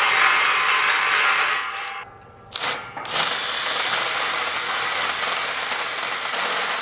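Cordless drill boring holes through steel railing stock, with the bit grinding into the metal. The drilling stops about two seconds in, there is one short knock, and then a second bout of drilling starts about three seconds in and runs on steadily.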